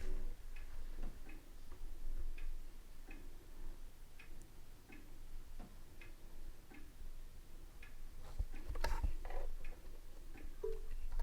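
Faint light ticks or clicks, irregularly spaced about one every half second to a second, with one louder knock about nine seconds in.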